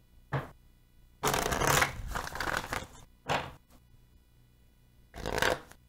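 A deck of oracle cards being shuffled by hand, in four rustling bursts: a short one, a longer one of about a second and a half, then two brief ones.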